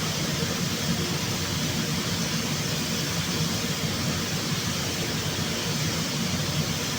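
Steady hiss over a low hum from body-shop equipment running continuously.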